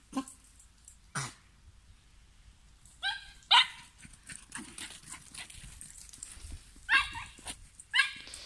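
Small dog barking in sharp, high-pitched yaps, two quick yaps about three seconds in and two more near the end.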